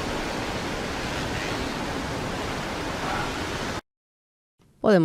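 Playback of an outdoor field-recording ambience: a steady, even rushing noise that cuts off abruptly about four seconds in, followed by a moment of silence.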